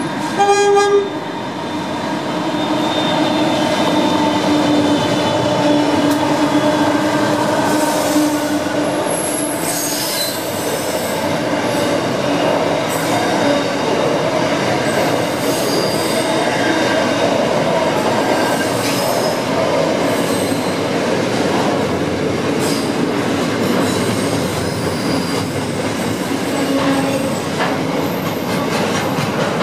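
Short horn blast about half a second in from an Aurizon freight train led by LDP-class and 6020-class diesel-electric locomotives. The locomotives then run past, followed by the steady loud rumble of container wagons rolling by, with occasional high wheel squeal.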